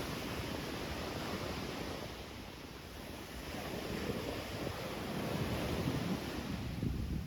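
Rough surf washing onto the beach in strong wind, with wind buffeting the microphone. The rush swells louder in the second half, then cuts off suddenly at the end.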